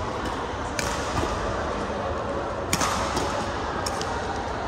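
Badminton rackets striking a shuttlecock in a rally: a few sharp hits, the loudest a little under three seconds in, over a steady hall noise.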